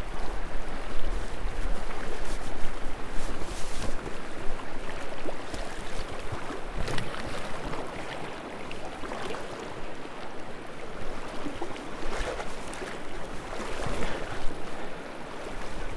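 Steady rush of flowing river water, broken by several short splashes as a hooked brown trout is fought and brought in.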